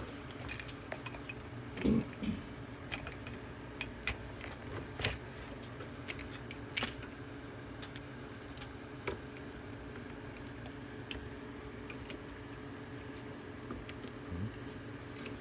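Scattered metallic clicks and clinks as a Gerber Gator Saw 3 is reassembled by hand: anodized bar sections slotting together and its chain being hooked on, with a few sharper clicks among lighter handling noise.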